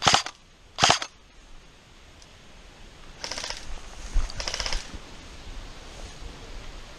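Airsoft rifles firing short bursts: two loud bursts right at the start, then two quieter rattling bursts of rapid shots about three and four and a half seconds in.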